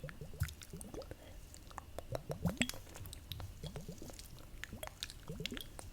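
Close-up ASMR mouth sounds: wet clicks, pops and smacks in an irregular scatter, with a denser, louder cluster around two and a half seconds in.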